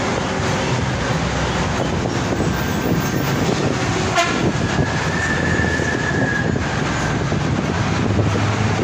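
A moving bus, heard from inside by an open window: steady engine and road rumble. There is a sharp click about four seconds in, then a faint high whine for about two seconds.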